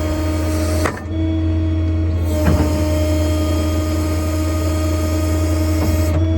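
A service truck's 6.7 Power Stroke diesel and its PTO-driven equipment running steadily: a strong low hum with a constant whine. It dips briefly about a second in, and there are a couple of light clicks later.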